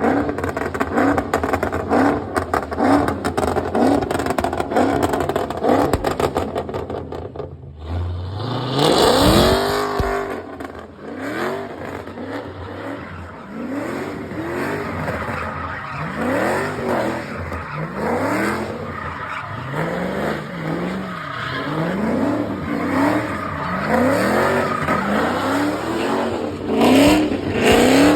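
A muscle car's V8 engine being revved hard. It runs with a fast, dense rumble, then about eight seconds in it gives a big rev that rises and falls, followed by a string of quick rev blips every second or two.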